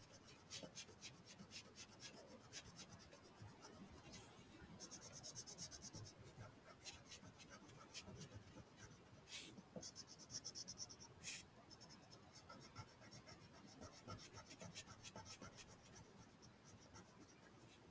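Faint scratching of a wax crayon colouring on a paper worksheet, in quick short back-and-forth strokes.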